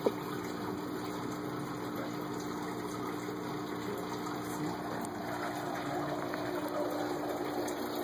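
Steady background hum with an even hiss, unbroken throughout, and one brief click at the very start.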